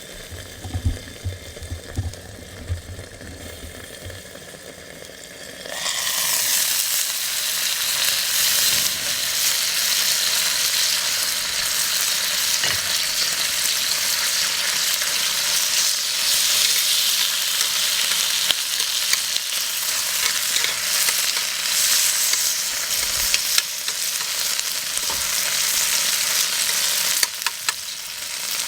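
Meat and garlic scapes sizzling in an iron frying pan; about six seconds in, as the heavy lid comes off, the sizzle jumps sharply louder and stays loud. A few soft knocks come before it.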